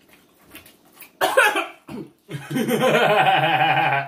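A person coughs sharply about a second in, then gives a long, wavering moan, a reaction to the burning heat of extra-spicy chicken wings.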